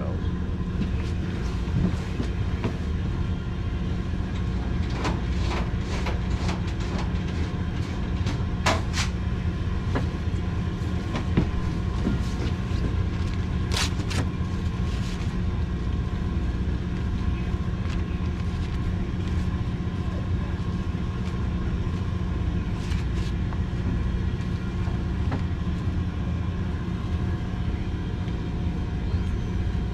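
Steady low drone of the sportfishing boat's machinery, with a few sharp clicks and knocks through it.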